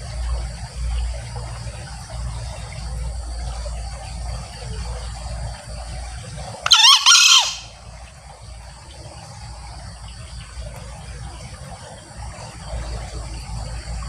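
Male green junglefowl crowing once, a short shrill call in two quick parts a little before halfway through.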